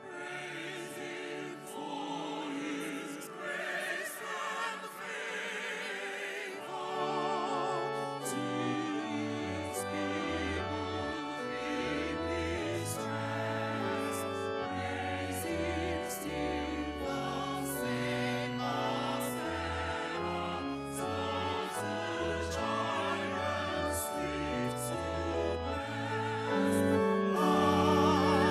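Church choir singing a hymn with vibrato, with low accompanying bass notes coming in about seven seconds in and the music growing louder near the end.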